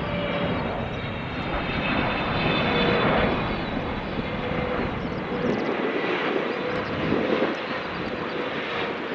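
Boeing 777-300 airliner on short final with gear down, its twin jet engines at approach power: a steady rush of jet noise with a thin whine on top, loudest about three seconds in.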